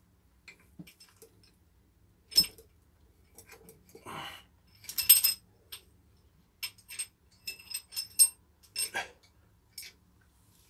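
Cast-iron cylinder head of a Ford 351 Windsor V8 being worked loose and lifted off the block: scattered metallic clinks and knocks, the loudest about two and five seconds in.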